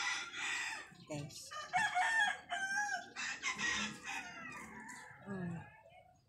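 Chickens calling: a rooster crowing and hens clucking in several separate, wavering calls.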